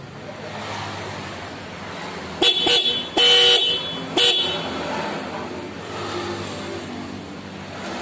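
Motorcycle snail horns, wired through a relay, sounding in four toots: two quick ones, one longer blast of about half a second, then one more quick one.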